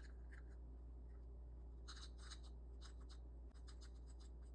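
Near silence: a low steady hum with a few faint, light scratches.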